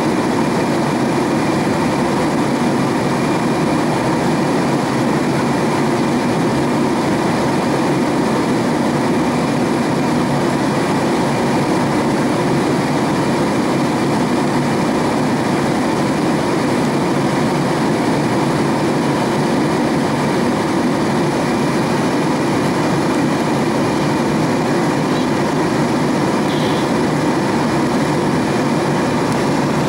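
Steady cabin roar of a Boeing 767-300ER in cruise: engine and airflow noise heard inside the cabin, even and unchanging.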